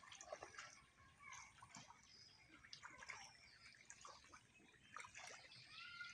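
Faint sloshing and dripping of shallow water as someone wades through it, with scattered short bird chirps.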